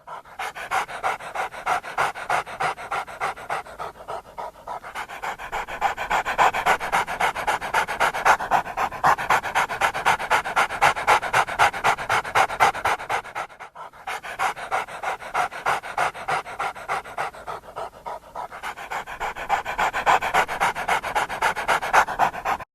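A dog panting steadily, about three quick breaths a second, with a brief break about fourteen seconds in.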